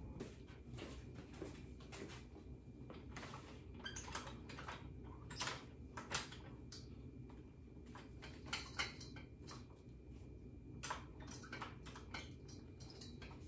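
Scattered light clicks, taps and knocks of hand handling, the sharpest about halfway through, as a bicycle repair stand is set up and adjusted to hold a heat gun.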